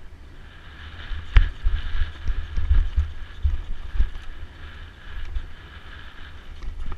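Mountain bike descending a rough dirt singletrack, heard from a camera on the rider: wind rumbling on the microphone and sharp knocks and rattles as the bike hits bumps. The knocks are thickest from about a second in to about four seconds in, then ease off.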